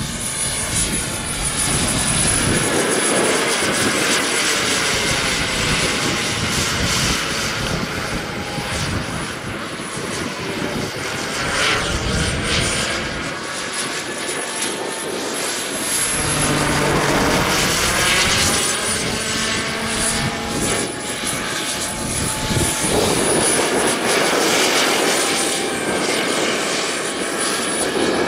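Jakadofsky Pro 7000 model turbine of an RC scale SA-315B Lama helicopter in flight: a steady high turbine whine over the rush of the rotor, swelling and easing as the model flies past.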